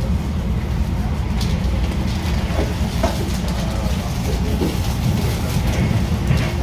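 MARTA CQ311 rapid-transit railcar running at speed between stations, heard from inside the car: a steady low rumble of wheels on the rails, with a few faint clicks.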